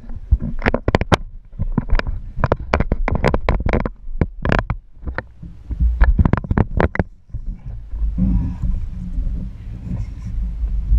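Rapid, irregular knocks and clicks of handling on a body-worn action camera over a low rumble of wind on the microphone; about seven seconds in the knocks stop and only the low rumble goes on.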